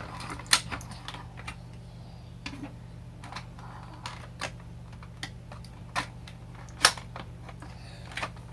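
Scissors snipping and clicking through toy packaging: irregular sharp clicks and snips, the louder ones about half a second, six and seven seconds in.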